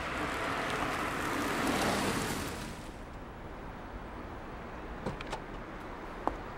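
A car drives up and pulls to a stop: a rush of tyre and engine noise swells and dies away about three seconds in, leaving a low steady running hum. A few light clicks come near the end.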